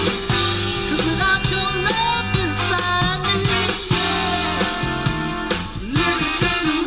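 Rock song with singing, electric guitar, bass and drums, played back through a car audio system.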